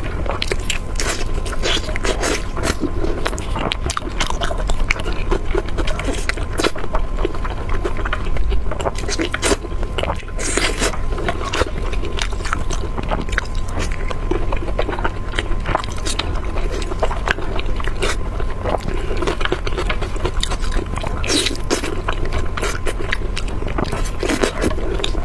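A person chewing and biting food close to the microphone, with many short mouth clicks and smacks, over a steady low hum.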